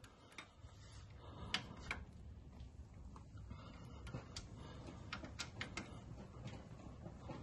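Faint, irregular metal clicks of a hand socket wrench turning out a loosened frame bolt on a Harley-Davidson Road Glide.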